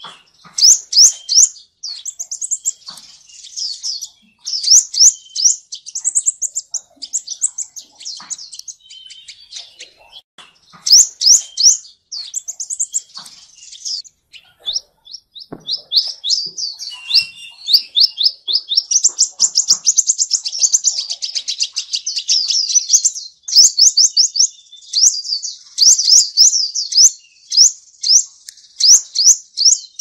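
Sunbird singing: fast runs of thin, high, rising chirps, many a second, broken by short pauses, with the longest unbroken run in the second half.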